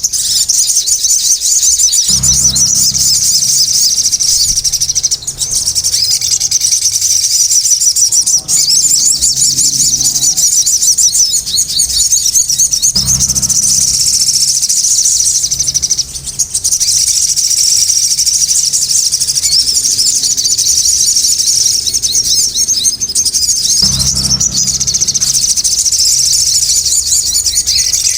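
Sogon birds chattering noisily without a break: a dense, rapid, high-pitched twittering. A short low hum sits under it three times, about 2, 13 and 24 seconds in.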